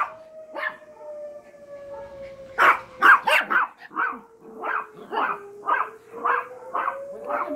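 An alarm siren sounding as one steady tone that slowly falls and then rises in pitch, while small Yorkshire terriers bark over it. The barking is sparse at first, then comes in a quick burst about two and a half seconds in and keeps on at about two or three barks a second.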